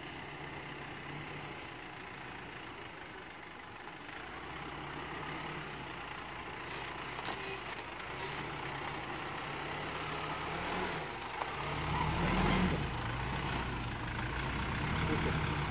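Nissan Navara D40's 2.5-litre YD25 four-cylinder turbodiesel working at low revs as the truck crawls over rocks, getting louder as it comes closer. The engine note swells and rises briefly about twelve seconds in as the truck climbs over a boulder.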